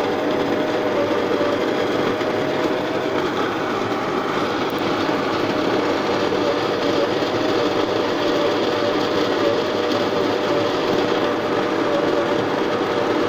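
Home espresso machine's pump running steadily, a continuous loud rattling buzz.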